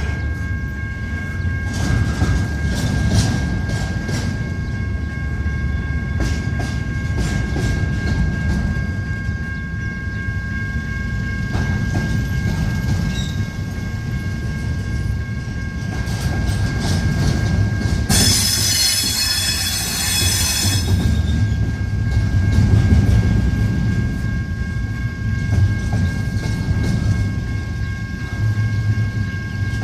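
Intermodal freight train cars rolling past: a steady rumble with wheel clicks over rail joints and a thin, steady wheel squeal. About 18 seconds in, a louder, high-pitched flange squeal cuts in for about three seconds.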